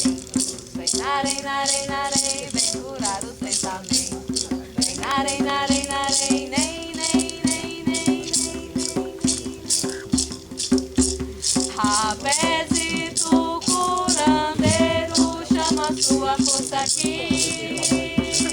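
A hand rattle shaken in a steady beat, about three strokes a second, with a voice chanting long held melodic phrases over it.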